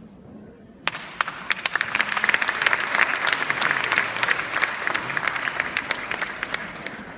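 Audience applauding. It starts about a second in with a few separate claps, swells into steady applause, then fades toward the end.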